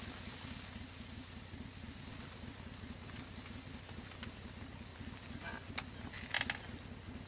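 Steady low rumble that flutters rapidly, with a fading hiss, in the aftermath of an explosion; a few short crackles come in the second half.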